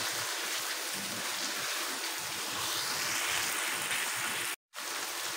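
Boiled mutton pieces frying in tomato masala in a nonstick wok: a steady sizzle as a spatula stirs the meat through the masala, at the bhuna (sautéing) stage. The sound cuts out for a moment near the end.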